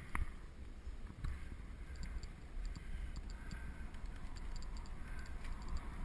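Wind buffeting the camera microphone and tyre rumble as a road bike rolls down a steep lane, with light clicks a few times a second.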